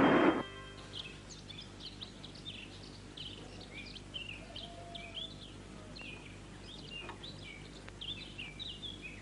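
Small birds chirping: many short, quick chirps, one after another, over a faint steady low hum.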